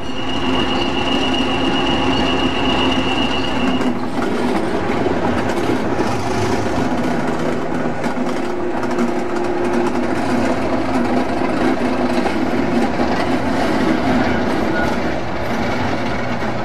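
Class 37 diesel-electric locomotive 37037 with its English Electric 12CSVT engine, running loud and steady as it moves slowly past. During the first four seconds a single steady high-pitched squeal sits over the train noise, then cuts off.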